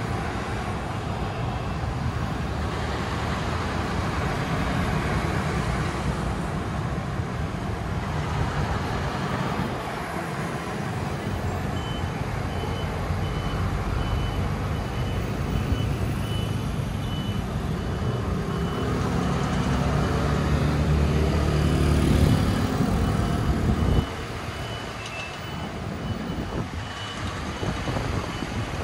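Traffic passing through an intersection: scooter and car engines running by steadily, with a heavier engine growing louder and stopping abruptly about three-quarters of the way in. From a little before halfway, a high electronic beep repeats about twice a second, like a truck's warning beeper.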